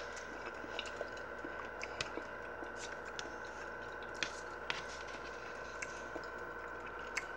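Quiet eating sounds: a metal fork working at a crab cake on a paper plate, with a few faint soft clicks and chewing, over a steady faint hum.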